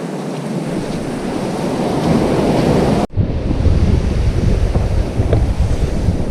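Choppy sea surf breaking, with strong wind buffeting the microphone. About three seconds in the sound cuts off for an instant and resumes with a heavier low wind rumble.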